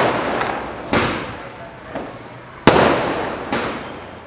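Aerial fireworks bursting overhead: four sharp bangs about a second apart, the loudest a little under three seconds in, each dying away over a second or so.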